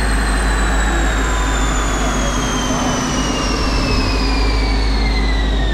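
C7 Corvette on a Dynojet chassis dyno, its engine and drivetrain winding down after a pull: a loud steady rumble under a high whine that falls slowly and evenly in pitch.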